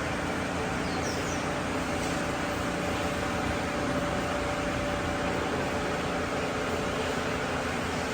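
Engine running steadily at an even speed, a constant mechanical hum and noise.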